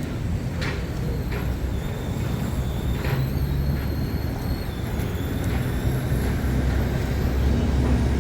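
Busy city street traffic: a steady low rumble of vehicle engines that grows slightly louder, with a few sharp clicks in the first few seconds.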